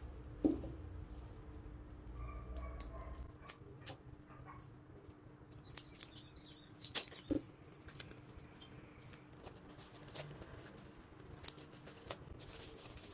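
Plastic shrink wrap on a paperback manga being handled and cut open with small scissors: scattered small clicks, snips and crinkles, over a faint steady hum.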